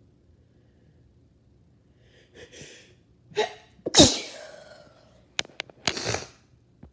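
Sneezing: a breathy intake about two and a half seconds in and a short sharp catch, then one loud sneeze about four seconds in whose pitch falls as it trails off. A few short clicks and a smaller second burst follow near the end.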